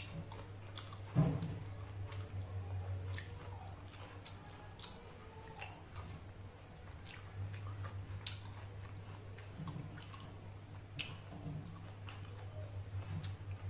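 Close-up chewing and mouth sounds from eating rice and siomay: soft wet smacks and clicks, over a steady low hum. A louder thump about a second in.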